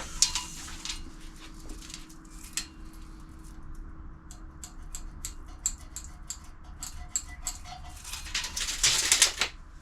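Steel box section being worked by hand while its cut edge is cleaned up: a string of light, sharp metallic clicks and taps, then one longer scraping stroke about a second long near the end.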